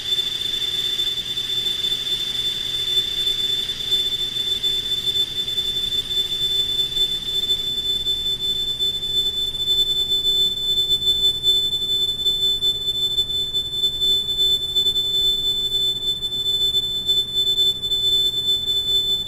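A recording of three small chimes, stretched 100 times with Paulstretch and played back as a steady ambient drone: one high ringing tone held throughout, over a weaker, lower steady tone and a faint haze.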